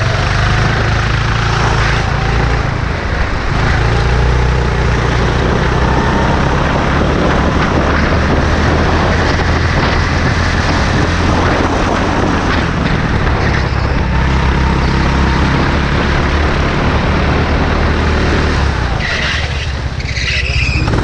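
Kart engine running hard at racing speed, heard from onboard, with a dense rush of noise over it. The sound dips briefly near the end as the kart slows for a corner.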